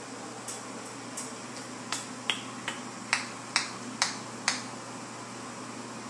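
A series of about nine sharp clicks, sparse at first, then louder and coming about two a second from about two seconds in, over a steady low hum.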